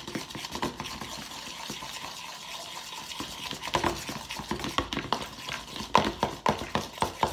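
Spoons stirring slime in plastic bowls. A soft steady scraping runs for the first few seconds, then quick irregular clicks and taps of the spoons against the bowls follow.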